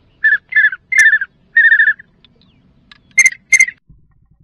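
Pintail duck whistle call blown in short rolling whistles: four in the first two seconds, then two sharper, shriller peeps about three seconds in.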